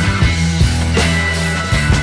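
Background rock music with a steady beat and sustained bass notes.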